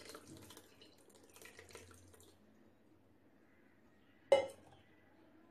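Curdled milk and whey pouring from a pot into a cotton cloth over a strainer, splashing and draining, then fading out after about two seconds. A single sharp knock about four seconds in.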